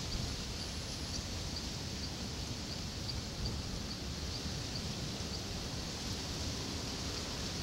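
Outdoor night ambience: a steady low hiss and rumble, with faint high chirps about two or three a second that stop about two-thirds of the way through.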